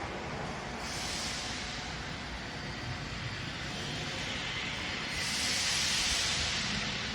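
Industrial washing and drying line running: a steady machine noise with surges of hiss, one starting about a second in and a louder one about five seconds in.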